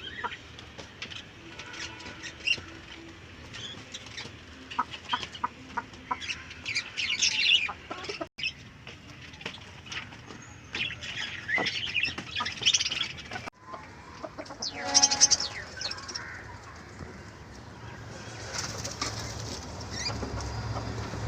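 Native country chickens flapping their wings and calling, in short scratchy bursts of clucks and chirps.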